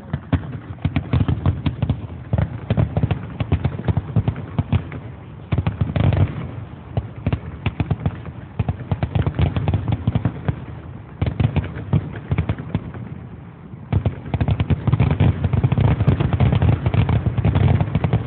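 Aerial fireworks bursting in dense, rapid volleys of cracks and bangs, several volleys of a few seconds each with brief lulls between them.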